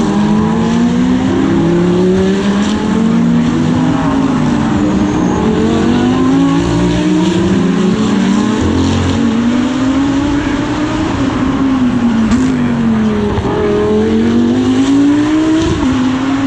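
GT3 race car engine at racing speed, its pitch climbing through the revs and dropping back at each gear change. About twelve seconds in the pitch falls away under braking and downshifts, then climbs again as the car accelerates.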